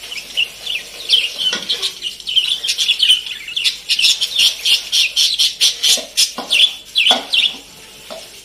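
Parrots calling in a rapid, busy stream of short, shrill chirps and screeches, with a few harsher, lower squawks mixed in.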